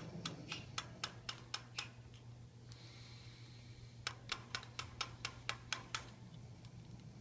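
Rapid light knocking on a wooden mirror frame: two runs of about eight sharp taps, roughly four a second, the second run starting about four seconds in. The knocking is a cue meant to get the Quaker parrot to knock back.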